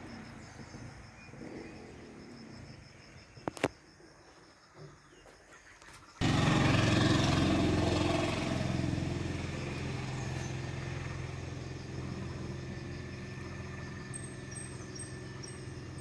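Quiet outdoor ambience, then about six seconds in a motor engine comes in suddenly and runs steadily, slowly fading away. Short high chirps repeat near the end.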